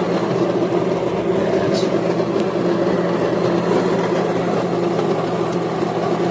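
Built-in burr grinder of a MEROL super-automatic espresso machine grinding coffee beans: a loud, steady motor sound.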